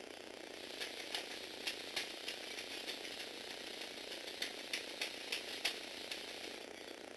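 Lego Technic 8043 excavator's Power Functions motors and plastic gears running with a steady whir, with a run of sharp, irregular clicks from the gear train through most of the middle.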